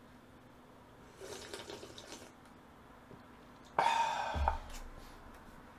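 A man slurping spicy noodle-soup broth from a bowl held to his mouth: soft sipping about a second in, then a louder slurp near four seconds in.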